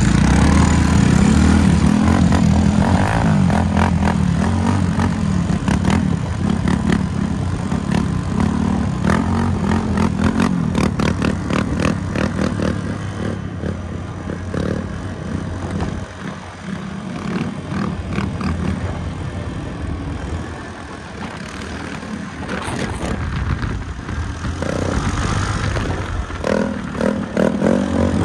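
Quad bike (ATV) engine running while riding along a gravel track, with rattling over the rough surface; it eases off about midway and picks up again near the end.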